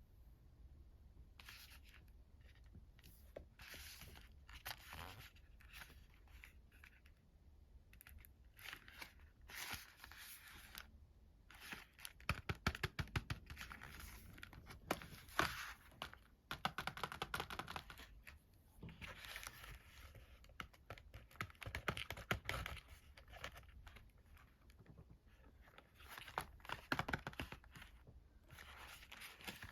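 Sweet and chocolate wrappers being torn open and crinkled, in irregular bursts, with a run of rapid crackles midway.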